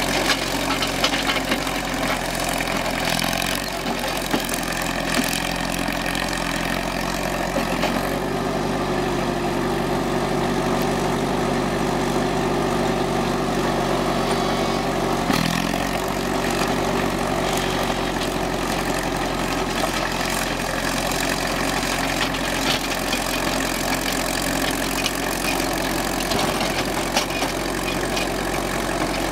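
Caterpillar D4 crawler dozer's four-cylinder diesel engine running steadily while the dozer pushes snow. Its note changes about a quarter of the way in and changes back about halfway, with a few knocks along the way.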